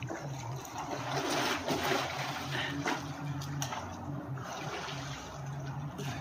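Pool water lapping and splashing as a swimmer moves through it and ducks under, over a low hum that comes and goes.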